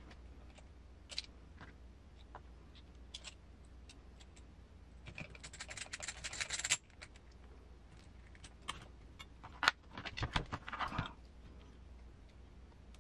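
Hand tools and small metal and plastic RC car parts handled on a workbench mat: scattered light clicks, a dense rattle for a second or two midway that stops abruptly, then a sharp click and a short run of rattling.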